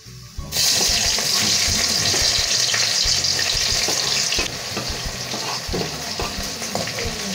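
Chopped shallots, garlic and chillies hitting hot oil in a wok: a loud sizzle starts about half a second in, then eases after about four seconds to a steady frying, with light scrapes and taps of a ladle pushing them off a wooden cutting board.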